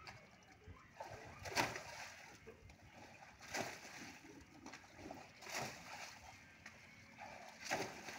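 Water splashing in four heavy strokes about two seconds apart as a man standing in shallow water heaves a wooden log up and down at the base of a wooden mooring post.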